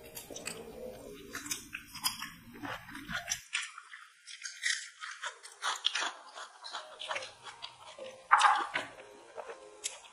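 People eating chicken biryani by hand from paper plates: close-up chewing with irregular small crunches and clicks of fingers working the rice, the loudest crunch about eight seconds in.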